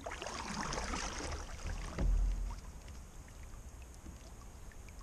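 Kayak paddle stroke splashing and dripping in the water, then a dull low thump about two seconds in as the paddle is set back down against the kayak.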